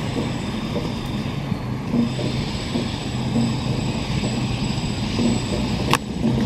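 Steady low mechanical hum over outdoor background noise, with a sharp click about six seconds in.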